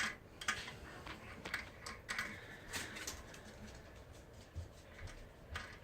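Faint, irregular clicks and taps of a wrench working the nut off a toilet tank's long threaded bolt.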